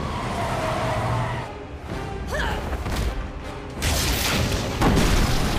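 Action-film soundtrack: music under sound effects, with two loud blasts of superhero energy beams fired from the hands, about four and five seconds in.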